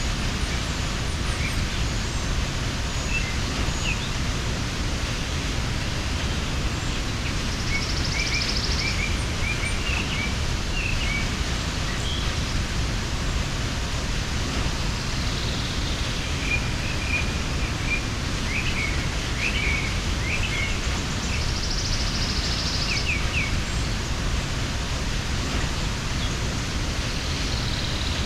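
Waterfall rushing steadily, with small birds chirping now and then over it. A short, high buzzing trill comes twice.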